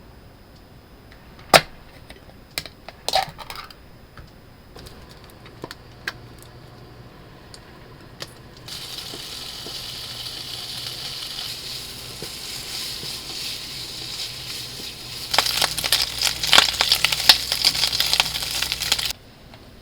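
A few kitchenware knocks and clinks, then food frying in a hot pan: a steady sizzle that starts about nine seconds in and turns to loud crackling and spattering about six seconds later, before cutting off suddenly.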